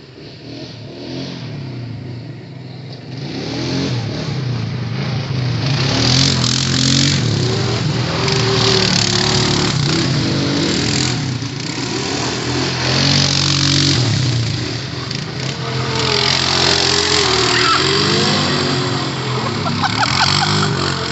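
ATV engine revving, its pitch rising and falling again and again, growing louder over the first few seconds and then staying loud.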